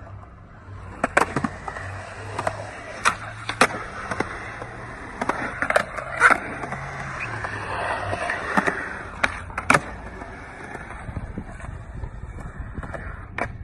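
Skateboard wheels rolling on concrete with a dozen or so sharp clacks of the board snapping and landing on the hard surface.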